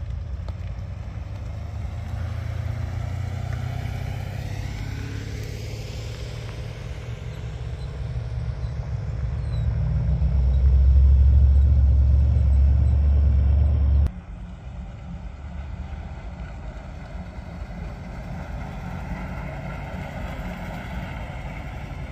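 Classic cars' engines and exhausts running with a low note as they drive past one after another. The sound swells to its loudest a little past halfway, then cuts off suddenly and gives way to a quieter engine sound.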